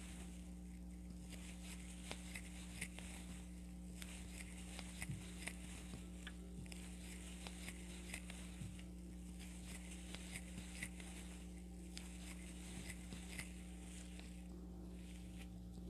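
Crochet hook and yarn handled as stitches are worked one into each stitch: faint, irregular small clicks and rubbing throughout, over a steady low electrical hum.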